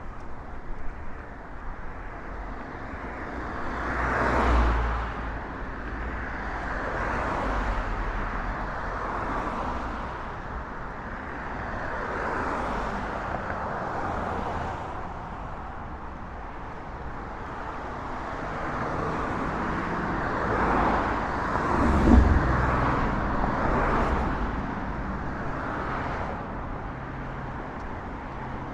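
Street traffic: a string of cars passing one after another, each rising and fading over a few seconds, the loudest about 22 seconds in.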